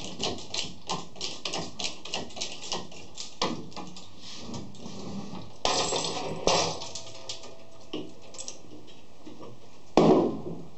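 Metal clicking as a hitch-mounted hoist is worked by hand: sharp clicks about three a second for the first few seconds, then two louder knocks around six seconds in and a heavy metal clunk near the end.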